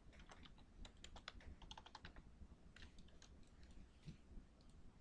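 Faint typing on a computer keyboard: a quick run of keystrokes in the first two seconds, and a few more about three seconds in.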